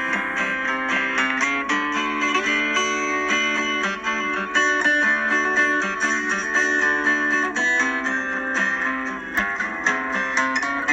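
Background music led by a picked guitar, steady and loud.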